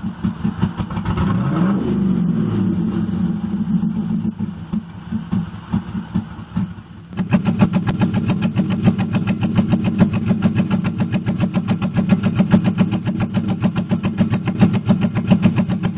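The LS1 V8 of a 1998 Pontiac Firebird Trans Am running with a misfire, giving a rhythmic, uneven pulsing. There is a brief rev that rises and falls about a second and a half in. About seven seconds in the sound turns suddenly louder and sharper, with evenly spaced beats.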